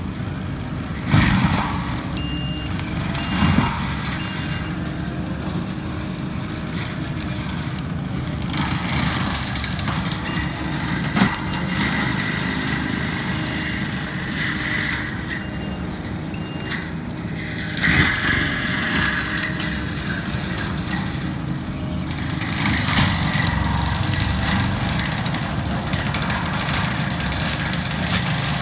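Kubota compact track loader's diesel engine running under load while its forest mulcher head grinds through brush and trees, with several sharp cracks of wood breaking. Short runs of high, evenly spaced beeps from a back-up alarm come and go a few times.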